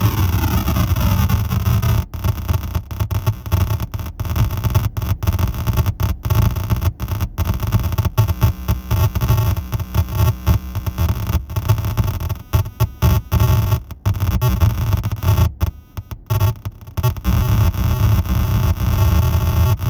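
Error Instruments Data Synth making harsh electronic noise over a low buzzing drone. A falling pitch sweep runs through the opening two seconds, then the sound stutters with many abrupt cutouts, most densely near the middle-to-late part.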